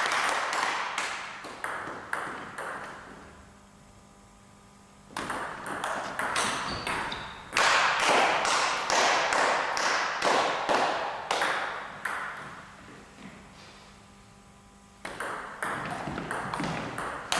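Table tennis rallies: the ball clicking off rackets and bouncing on the table in quick alternation. There are three runs of hits with short quiet pauses between points.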